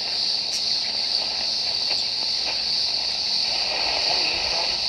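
Cicadas droning loudly in a steady high-pitched band, under the faint sound of a 1960 Stromberg Carlson 70T11 transistor radio being tuned between stations.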